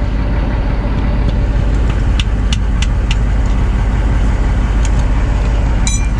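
Light taps of a rubber mallet on a Detroit Series 60 main bearing cap, knocking it loose for removal: a handful of single taps, then a quick cluster near the end. Under them runs a loud, steady, low mechanical rumble.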